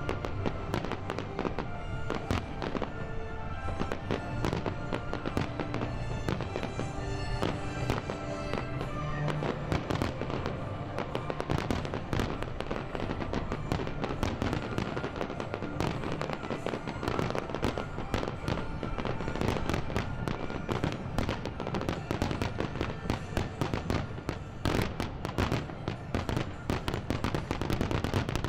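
Aerial firework shells bursting and crackling in quick succession, with music playing throughout. The bangs come thicker near the end.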